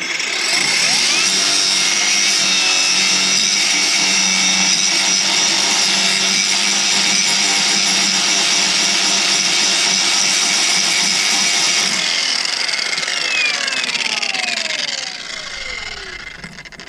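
Angle grinder grinding through the metal remains of a track rod end's nut, running steadily at full speed, then released about twelve seconds in and spinning down with a falling whine that fades out.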